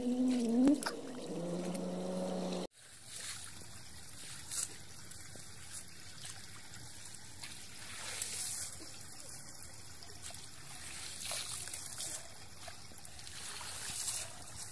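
A short wavering pitched sound that is cut off abruptly about three seconds in. Then water runs and trickles through a culvert drain, with a few louder splashes.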